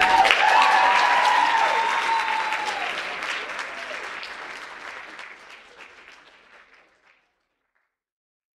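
Audience applauding, with a voice or two cheering in the first three seconds; the applause fades away over about seven seconds.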